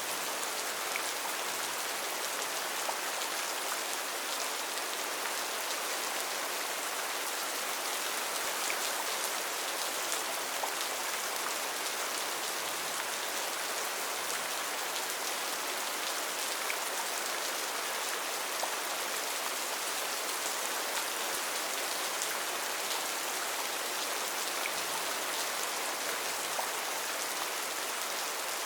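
Steady rain falling in a forest, an even hiss with scattered individual drops pattering on leaves and surfaces.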